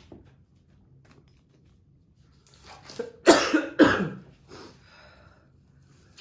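A person coughing in a short fit, two hard coughs a little past the middle with weaker ones around them: a cough brought on by the pepper heat of the super-hot cheese puffs just eaten.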